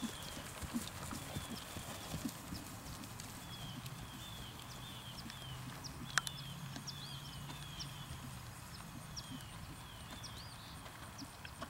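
A ridden horse's hoofbeats on grass turf, an uneven run of soft knocks, with one sharp click a little past halfway.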